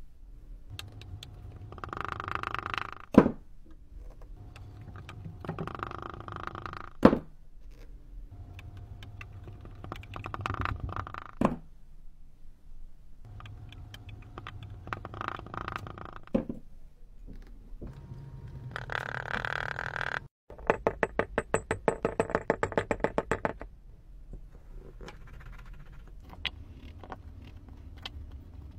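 Kinetic sand being packed into a glass with a plastic tamper: crunching, scraping pushes, each ending in a sharp knock, about every four seconds. About two-thirds of the way in, a louder crunch is followed by a fast rattle of clicks lasting a few seconds.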